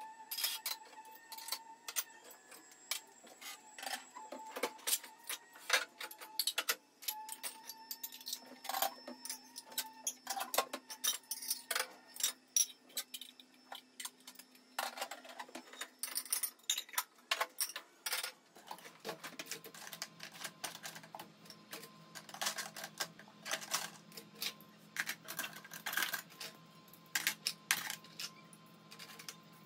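Rapid, irregular clinks and knocks of dishes, glasses and kitchen items being handled and set down during kitchen counter cleaning and tidying.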